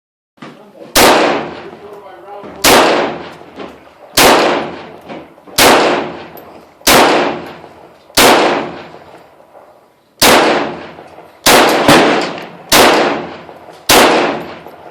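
Semi-automatic rifle fired shot by shot, about eleven shots, mostly a second and a half apart with a quick double near two-thirds of the way through, each crack trailing off in an echo.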